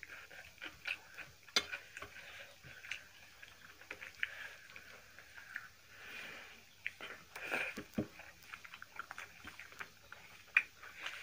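Close-up eating sounds of rice being eaten by hand from steel plates: chewing and mouth smacks, with fingers mixing and scooping rice on the metal plates. These come as irregular small clicks and soft rustles, with a couple of sharper clicks.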